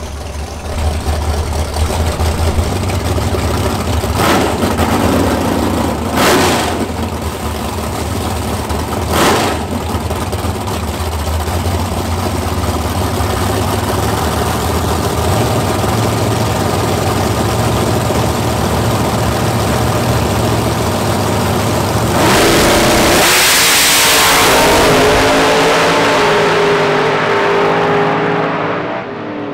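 Drag race cars at the start line of a grudge race: engines idling with a steady low rumble and three short sharp throttle blips, then launching at full throttle about 22 seconds in, loud for a few seconds before the sound drops in pitch as the cars run away down the strip.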